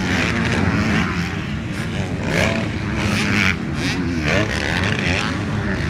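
Motocross motorcycles' engines revving hard as riders come past and over a jump, the pitch rising and falling repeatedly with the throttle.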